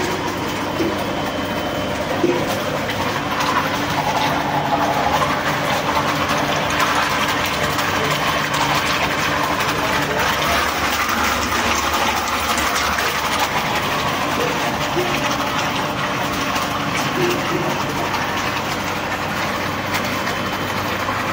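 Industrial meat-processing machinery, a large meat grinder among it, running with a steady mechanical drone and a low motor hum.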